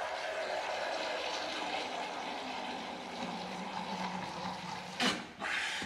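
Water squirting from a syringe-style Holi pichkari into a plastic mug as its plunger is pushed down: a steady hissing pour for almost five seconds, then two short spurts as the barrel empties.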